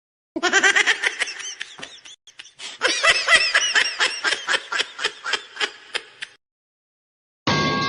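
Meme sound clip of a person laughing hard in rapid, high-pitched bursts, about four or five a second, with a short break about two seconds in; it stops about six seconds in. A loud new sound with steady tones starts just before the end.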